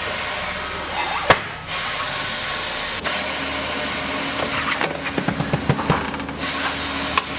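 Air hissing out of a car tire through the valve stem with the valve core removed, a steady loud hiss as the tire deflates. A few light clicks come about five to six seconds in.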